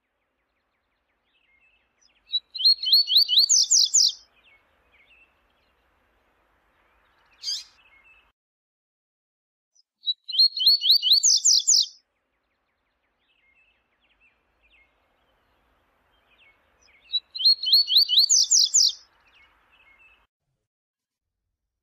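Double-collared seedeater (coleiro) singing: three song phrases about seven seconds apart. Each is a quick run of repeated sharp, high notes lasting about a second and a half. A single short high note falls between the first two phrases, and faint soft chips sound between phrases.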